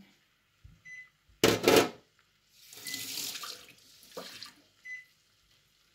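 Running water from a tap in two spurts: a brief loud splash, then a longer hiss. A faint short high beep repeats about every two seconds.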